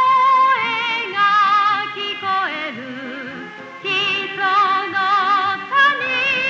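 A woman singing a Japanese TV period-drama theme song with band accompaniment, holding long notes with a strong wavering vibrato. About two and a half seconds in the voice slides down at the end of a phrase, and a new phrase starts about a second and a half later.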